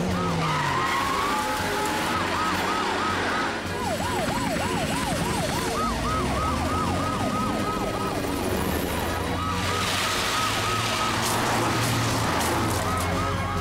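Emergency-vehicle sirens on the cartoon rescue cars, a rapid up-and-down yelp repeating about three or four times a second. More than one siren overlaps in the middle.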